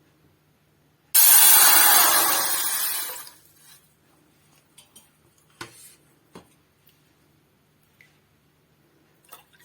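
Water poured from a glass into a pan: one loud splashing pour that starts suddenly and tails off over about two seconds, followed by a few light clinks.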